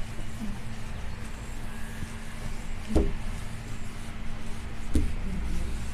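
A hand wiping down a whiteboard, rubbing over a steady low hum, with two short thuds about three and five seconds in.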